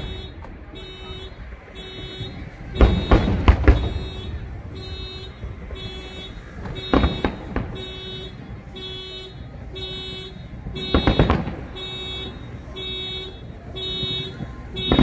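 Aerial fireworks shells bursting in clusters of several quick bangs, about every four seconds, the loudest cluster about three seconds in. Under them a steady electronic beep repeats about twice a second.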